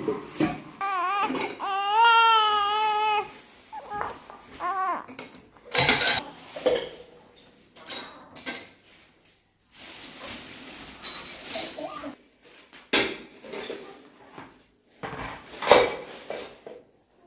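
Newborn baby crying, one high wavering cry about a second in and a shorter cry a few seconds later. Scattered knocks and clatter of things being handled follow, the loudest near the end.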